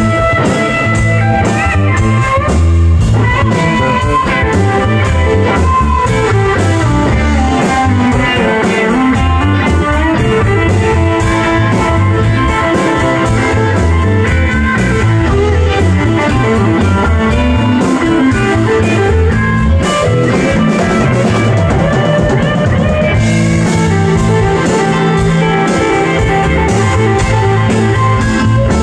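Live band playing an instrumental passage on two electric guitars, electric bass and a Pearl drum kit, with a guitar line of bending notes over a steady drum beat.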